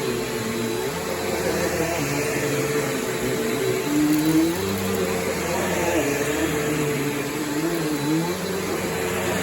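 Bissell PowerForce Helix Turbo bagless upright vacuum running, with a steady motor whine over a rushing airflow noise and a lower hum that rises and falls in pitch.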